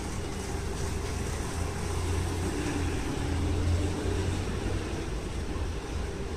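Keifuku Randen tram standing at the platform, its equipment giving off a steady low hum and rumble that swells slightly midway.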